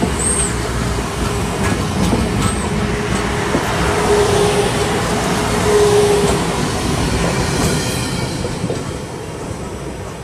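Amtrak Cascades Talgo passenger cars rolling past on the rails: a steady rumble of wheels and cars with a faint squealing tone that swells in the middle. The sound fades from about eight seconds in as the last car goes by.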